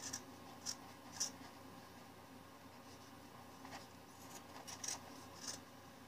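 Scissors cutting through sock fabric: a handful of faint, short snips spaced irregularly, with soft handling of the cloth between them.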